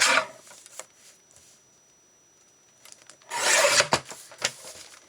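Cardstock scraps being handled: a short rustle of paper at the start, then a louder rasping rub of card about three and a half seconds in, followed by a few light taps.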